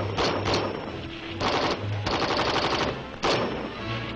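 Gunfire from a squad of 7.62 mm M-14 rifles: three sharp shots in quick succession, then short overlapping rattling bursts around the middle and another single shot near the end.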